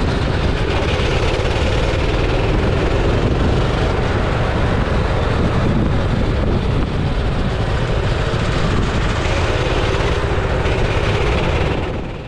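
Kart engine running steadily at speed under a dense rush of noise. The sound falls away near the end.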